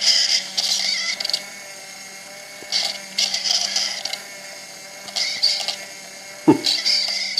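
Homemade record player running: a hobby servo motor spinning a 45 single whirs and grinds steadily, loud for the job. Scratchy needle noise played through a plastic cup swells and fades about every second and a half. A single knock comes about six and a half seconds in.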